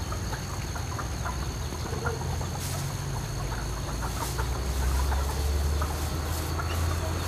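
Outdoor ambience: a low rumble that grows louder about halfway through, with many scattered short ticking sounds.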